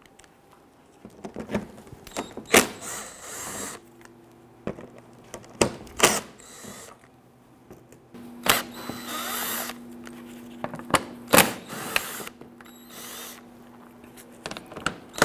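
Cordless drill/driver running in short runs as it spins out the bumper's underside screws, a steady motor hum through much of the middle, with sharp clicks and knocks from the bit and screws between runs.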